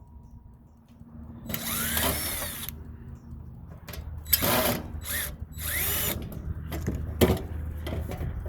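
Power drill/driver run in about four or five short bursts, its motor speed rising and falling with each pull of the trigger, as it backs screws out of a rusty doghouse heater's sheet-metal casing. A sharp click comes near the end.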